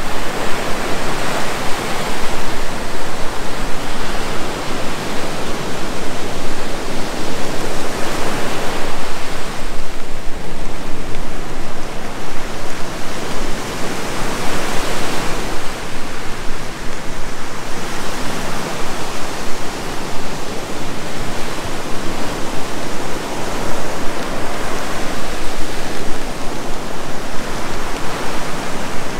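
Ocean surf breaking on a sandy beach in falling rain: a steady rushing noise that swells and eases every several seconds as waves come in.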